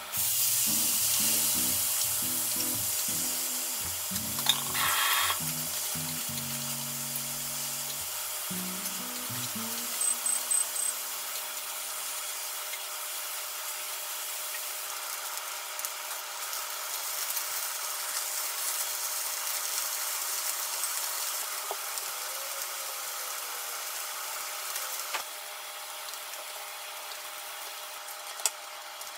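Sweet soy glaze of soy sauce, sugar, mirin and vinegar hitting a hot frying pan of sliced lotus root. It sizzles loudest as it is poured in, then settles into a steady sizzle as it reduces, and the sizzle drops away near the end. Background music plays over the first dozen seconds, and a single knife knock comes near the end.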